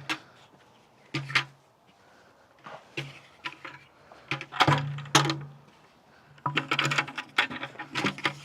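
Irregular clattering and knocking in several bursts, as of hard objects being handled, with the densest run near the end.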